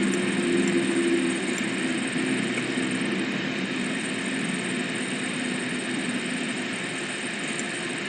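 Steady rushing noise, with a low hum that dies away in the first few seconds; the whole sound slowly grows quieter.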